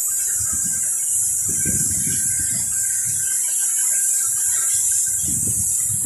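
Steady high-pitched hiss of compressed air escaping at the fitting of a steam boiler's air pilot pressure switch, with low rumbling bumps of handling now and then.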